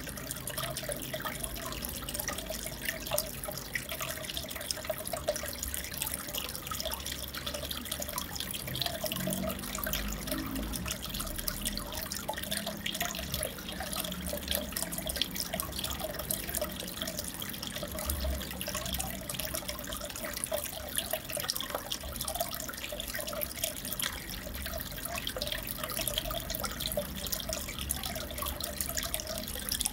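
Aquarium water trickling and bubbling steadily, a dense, even stream of small drips and bubble pops.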